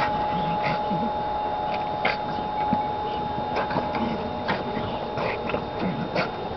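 A pug nosing and pushing a plastic ball through grass: irregular short scuffs and snuffles, over a thin steady hum.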